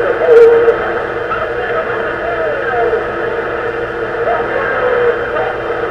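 Shortwave broadcast played through the speaker of a Realistic DX-160 receiver: a voice squeezed into a narrow, tinny band over steady static hiss and a steady low whistle. There is a louder moment about half a second in.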